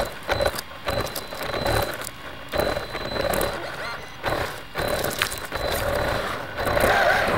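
Electric RC car motor whining in short bursts as it is throttled on and off, with knocks and rattles from the car as it drives.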